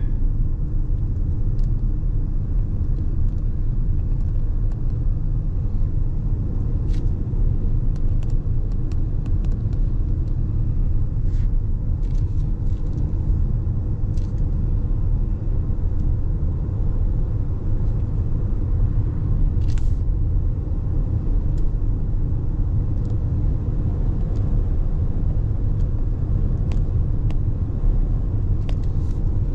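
Steady low rumble of road and engine noise heard inside a moving car, with a few faint, scattered clicks.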